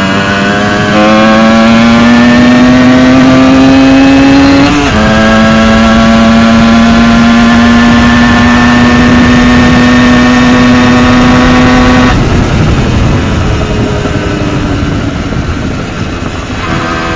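Tomos ATX-60 moped's small two-stroke engine under load. Its note climbs steadily, drops suddenly in pitch about five seconds in, then holds high and loud. Around twelve seconds in the throttle comes off and the note falls away quieter, and it picks up again near the end.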